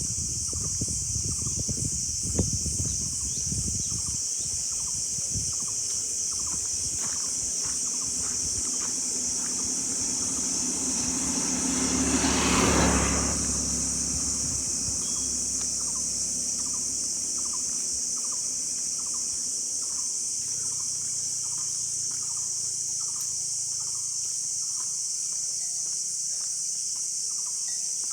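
Steady high-pitched chorus of insects, with a short call repeating about once a second. About twelve seconds in, a vehicle passes, swelling and fading over roughly three seconds.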